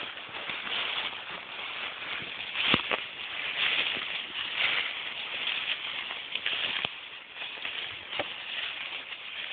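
Footsteps crunching and rustling through dry fallen leaves in uneven patches, with a few sharp clicks, the loudest about three seconds in.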